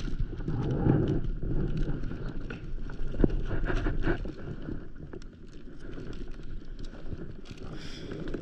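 Gear being handled on a paddleboard: a vinyl dry bag and a bucket rustling and shifting, with scattered knocks and clicks, the sharpest about three seconds in, over a low rumble of wind on the microphone.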